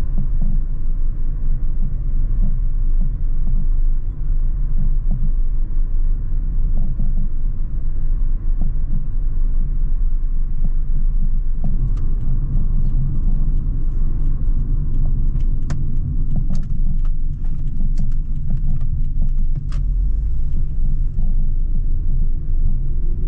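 Car driving, heard from inside the cabin: a steady low road and engine rumble. About halfway through, a scatter of light irregular clicks and rattles lasts several seconds.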